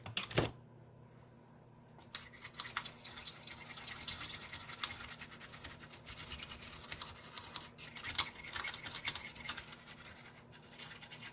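A brush scrubbing a Commodore 64 circuit board wet with isopropyl alcohol: rapid scratchy back-and-forth strokes starting about two seconds in, after a brief sharp sound just after the start.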